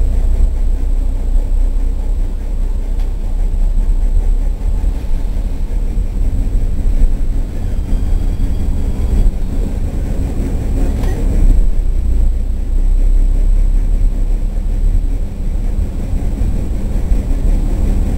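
Diesel train's engine and running gear rumbling steadily from inside the cab as it rolls slowly along street track, with one sharp knock about two thirds of the way through.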